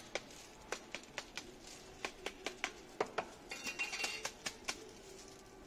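Sharp plastic clicks and taps from a gloved hand handling a plastic plant pot and potting mix over a plastic tub, about three a second, stopping shortly before the end.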